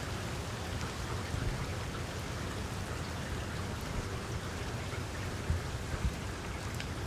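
Monsoon rain falling steadily, a dense hiss with a low rumble beneath and occasional drops ticking. It cuts off suddenly at the end.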